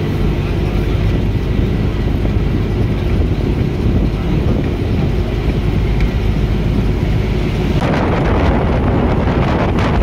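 Bus engine and road noise heard from inside the moving bus. About eight seconds in, wind buffeting the microphone comes in suddenly.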